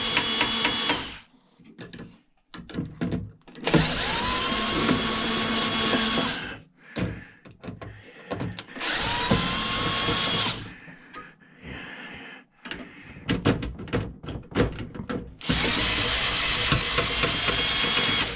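Power drill-driver run in four bursts of a couple of seconds each, each spinning up to a steady whine, backing out the screws that hold an aluminum heat sink. Clicks and rattles of small parts being handled between the bursts.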